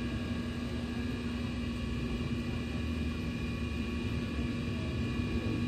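Steady mechanical hum with several fixed tones over a low rumble, unchanging and with no distinct knocks or clicks.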